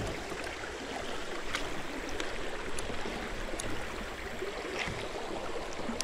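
Shallow creek water running steadily over rocks and around the feet, with a few faint ticks.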